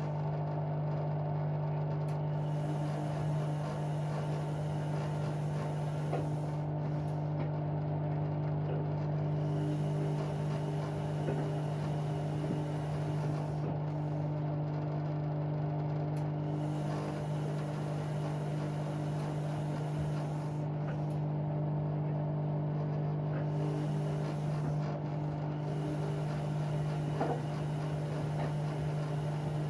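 Bauknecht WA aquaton 1400 front-loading washing machine running mid-cycle on a 60 °C cottons wash, giving a steady, even hum.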